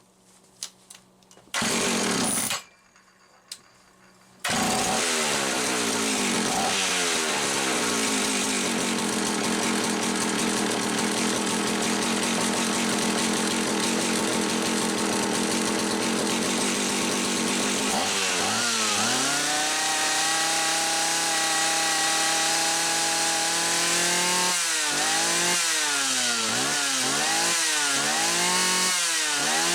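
Homelite 360 two-stroke chainsaw being started and run on a test after its carburetor needles were set. A short burst about two seconds in, then the engine catches about four and a half seconds in and runs at a low, steady speed. About eighteen seconds in the throttle opens and holds high revs, then it is revved up and down several times near the end.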